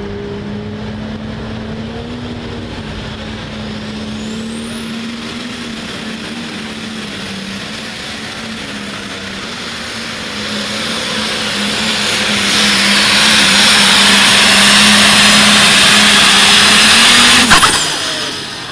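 Heavy super stock pulling tractor's multi-turbo diesel engine running steadily, then winding up to full power about ten seconds in for the pull. It is loud, with a high whine over it, and cuts off abruptly about a second before the end, the engine pitch sweeping down as the run ends.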